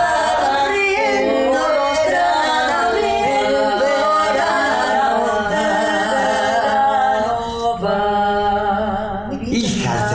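Three women singing together in harmony without instruments, holding long notes. The singing breaks off shortly before the end.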